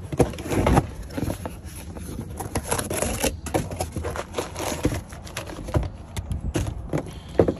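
A camshaft's cardboard box and packaging being handled and opened: irregular scraping, rustling and crinkling with scattered clicks and knocks, the sharpest knock near the end.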